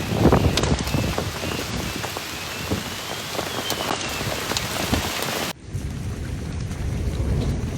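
Hail and heavy rain pelting down, with sharp clicks of hailstones striking among the steady rush. About five and a half seconds in the sound cuts abruptly to a quieter, duller rush.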